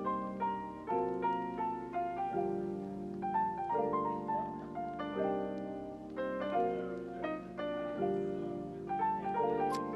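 Background instrumental music: a light melody of short notes over held chords.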